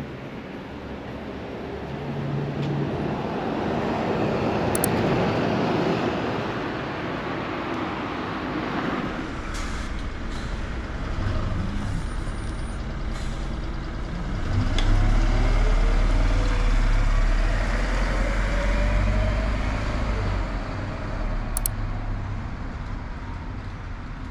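Kyoto City bus engine running close by as the bus turns and pulls away, a deep hum with its pitch rising in steps as it accelerates, over road and wind noise.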